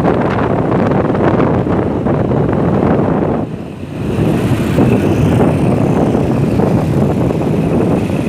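Wind buffeting the microphone on a moving motorcycle, mixed with the motorcycle's engine and road noise. It eases briefly about three and a half seconds in, then comes back.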